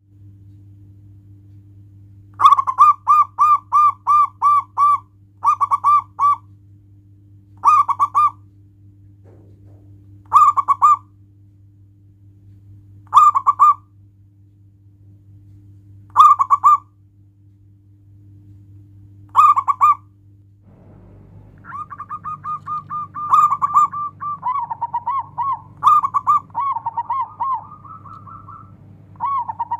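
Zebra dove (perkutut) song: runs of short, quick repeated coo notes. A long run of about seven notes starts about two and a half seconds in, then short bursts of a few notes follow every two to three seconds. From about two-thirds of the way through, the notes come almost without a break and overlap.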